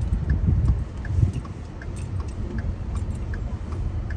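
Car cabin road noise: a steady low rumble of the vehicle driving over a rough, potholed road, bumpier in the first second, with a faint regular ticking above it.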